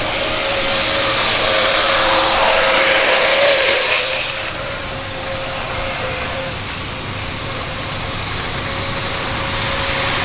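TOMIX N gauge motor unit running along the track with a steady, mosquito-like motor whine over a hiss of wheel and track noise; the whine is this power unit's abnormal noise. The sound is loudest for the first four seconds, drops back, and swells again near the end.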